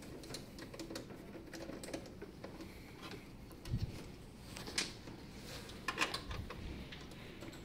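Scattered light clicks and knocks of hands handling metal gas fittings and hoses inside an open anesthesia machine, with a low thump a little before four seconds in and a cluster of sharper clicks around five to six seconds.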